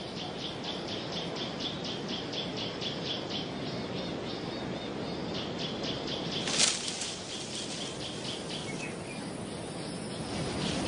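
Outdoor wildlife ambience: a rapid, steady chirping of about four to five pulses a second from an insect or bird, over a soft hiss. About six and a half seconds in comes a single sharp, brief rustle of foliage as a vervet monkey lunges into a leafy bush.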